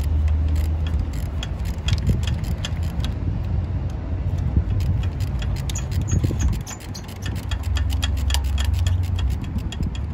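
Socket ratchet clicking rapidly as it loosens a spark plug, many quick ticks a second, over a steady low rumble.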